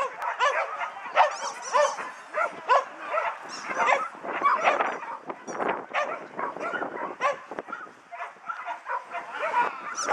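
Dogs barking and yipping, a rapid run of short barks, several a second, with a brief lull about eight seconds in.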